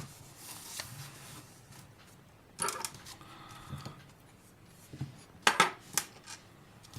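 Small metal parts of a brushless drone motor being handled by hand: light rustling and scraping, with two sharp metallic clicks about half a second apart near the end.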